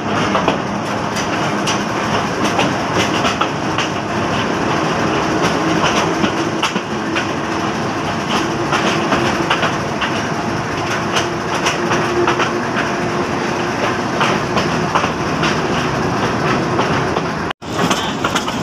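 Slow-moving passenger train heard from inside a coach, its wheels clattering and rattling over the joints of rough, poorly kept track, with a faint steady hum underneath. The sound cuts out for an instant near the end.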